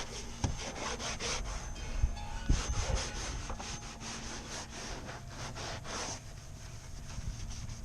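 Scrubbing a kayak hull by hand, a run of irregular rubbing strokes over the wet surface as it is cleaned with degreaser.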